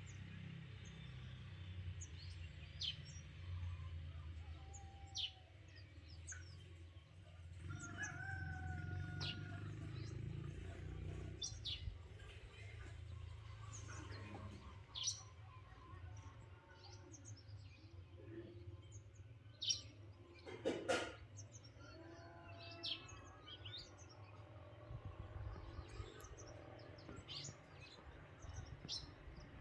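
Birds chirping: many short, high chirps, with a few longer, lower-pitched calls among them over a low rumble. A sharp knock stands out about two-thirds of the way through.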